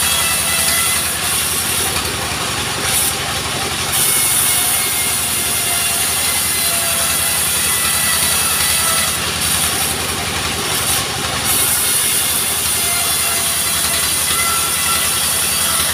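Portable sawmill running steadily: its engine beats at an even, fast pulse under a high hiss that thins out twice.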